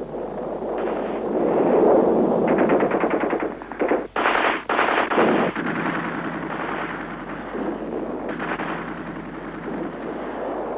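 Rapid automatic machine-gun fire in long runs over a continuous din of battle, with a few louder reports about four to five and a half seconds in.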